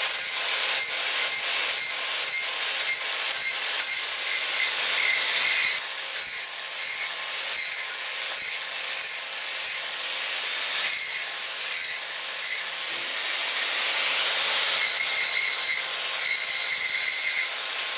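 Electric angle grinder running steadily, its abrasive disc worked around the cut end of thin steel exhaust tubing to clean the edge and take off the burrs. The grinding rasp comes and goes in repeated short passes over the steady whine of the motor, choppiest through the middle.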